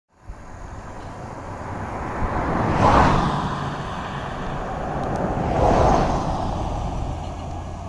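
Road traffic: two vehicles pass one after the other, the first about three seconds in and the second around six seconds, each swelling and fading, over a steady low rumble.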